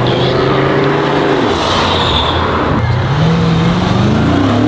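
Car engines revving and accelerating past. The engine note holds and then falls away about a second and a half in, then climbs again from about three seconds as another car revs up.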